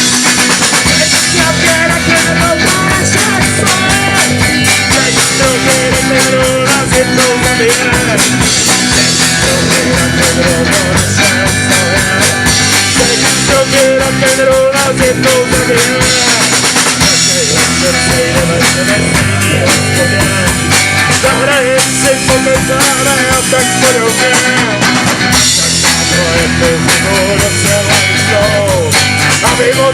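Rock band playing live in an acoustic line-up: guitars and a drum kit keeping a steady beat under a sung melody.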